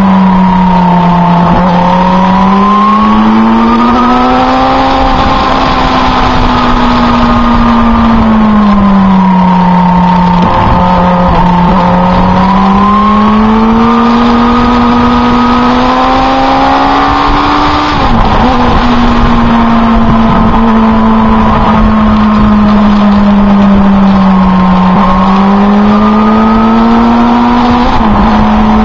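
Motorcycle engine running on the road, its pitch slowly rising and falling with the throttle through the bends, with a brief drop about eighteen seconds in, under heavy wind rush.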